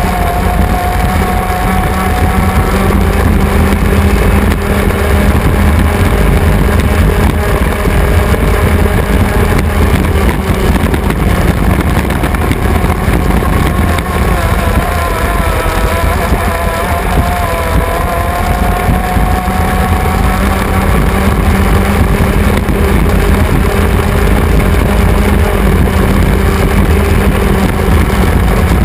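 The 350-cubic-inch V8 of a 350-class racing hydroplane, heard from the cockpit, running loud and steady at race speed. Its note sags briefly a little past halfway and then climbs back.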